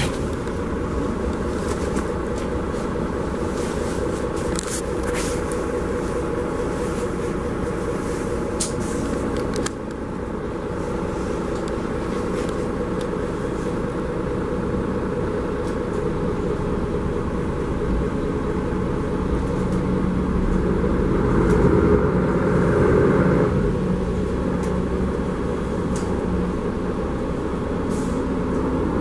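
Cabin noise inside a Mercedes-Benz Conecto G articulated city bus: a steady drone of the diesel engine and tyres, with light clicks and rattles in the first few seconds. About three-quarters of the way through, the engine note grows louder for a couple of seconds, then settles back.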